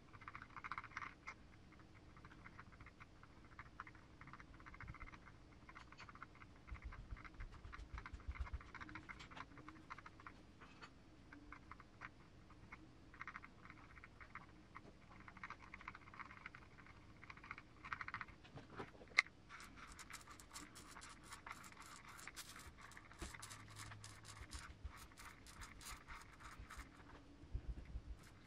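Faint scratching and small light clicks of plastic and metal parts being handled and fitted while an RC car transmission is assembled by hand. The clicks come quicker and sharper in the second half.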